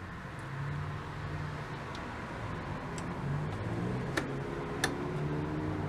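Switches and knobs on a vacuum tube tester clicking, with two sharp clicks a little over four seconds in and a few fainter ticks before, over a low hum.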